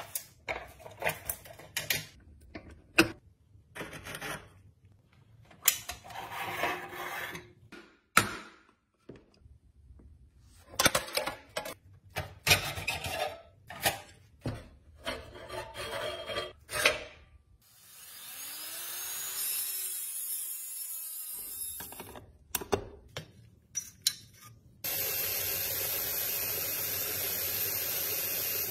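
Clicks, knocks and scraping of a steel Tonka toy wrecker being taken apart by hand. There are a few seconds of steady whirring midway, and near the end an electric drill runs steadily, drilling out the pivot rivet at the end of the rusty boom.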